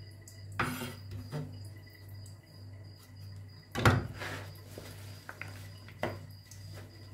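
Kitchen utensils and dishes clinking and knocking a few separate times, the loudest knock about four seconds in, over a steady low hum.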